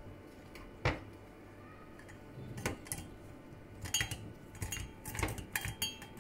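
Kitchenware clinking and knocking as a ceramic mug with a metal tea-infuser basket and an enamel pan are handled on a glass cooktop: one sharp knock about a second in, then a run of clinks with brief ringing from about two and a half seconds on.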